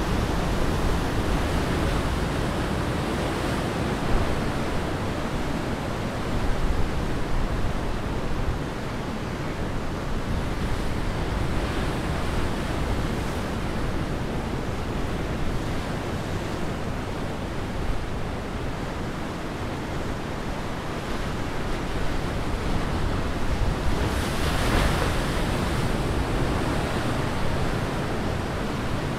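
Ocean surf breaking and washing in: a steady rush of foaming waves, swelling briefly as single waves break, loudest near the end.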